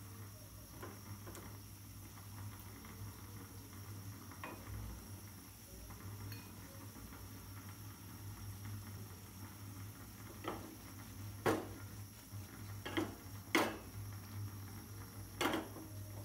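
Onion-and-spice gravy with fried puti fish simmering quietly in a pan, with about five sharp clinks of cookware in the second half.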